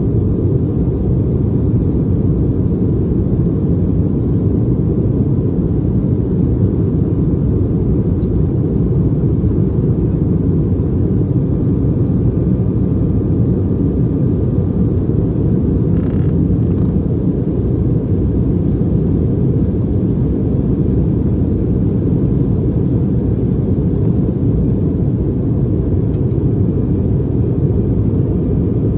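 Steady low roar heard inside the cabin of an Embraer E190 in its climb: its twin GE CF34-10E turbofans and the airflow over the fuselage, with a faint high whine above the rumble.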